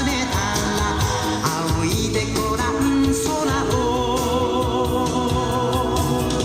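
A song with a singing voice over a steady instrumental accompaniment.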